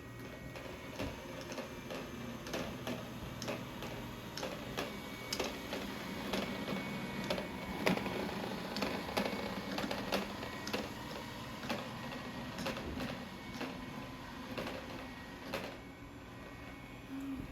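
Robot vacuum running, with a steady motor hum under irregular clicks and knocks. The loudest knock comes about eight seconds in.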